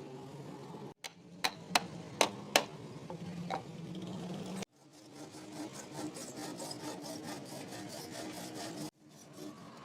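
Hand-tool work on a metal radiator: several sharp taps, then a quick run of rasping strokes like filing or scraping. The sound cuts off abruptly twice.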